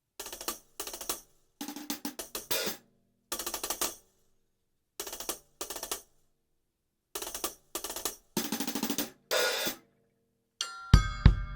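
Drum kit played in short phrases of hi-hat and cymbal strikes with light snare, each phrase stopping dead, picked up dry through the Yamaha EAD50's overhead mic with the kick, snare and hi-hat mics engaged. Near the end a full groove with bass drum comes in.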